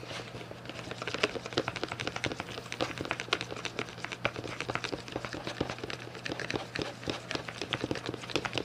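Slime mixture of glue, paint and shaving cream being stirred in a bowl with a utensil: rapid, irregular clicks and taps, over a steady low hum.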